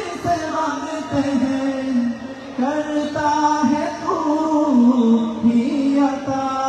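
Group of men singing a qawwali in chorus, holding long notes that step from pitch to pitch.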